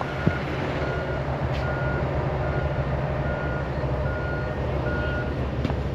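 A vehicle's backup alarm beeping steadily, about one beep every 0.8 seconds, over the steady rumble of its running engine. The beeps stop near the end.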